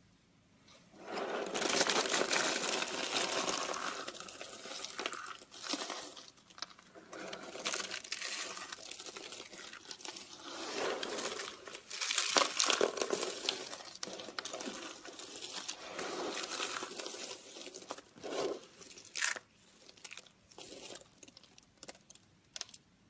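Dry bar soap being cut with a blade: a crunchy, crumbling scraping in a series of strokes of varying length, with a few short sharp crunches near the end.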